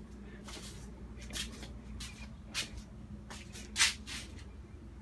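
Faint rustling and shuffling handling noises, a few soft brushes a second or so apart, over a steady low hum.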